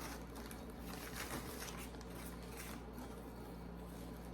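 Soft, intermittent rustling of packing material as a potted plant is lifted out of its shipping box, over a low steady hum.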